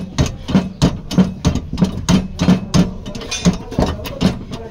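Steady hammer blows on the car body's sheet metal, about three a second, each knock with a short metallic ring.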